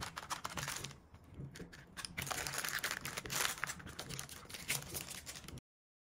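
Dense crinkling and crackling of something being handled, easing briefly about a second in and cutting off abruptly near the end.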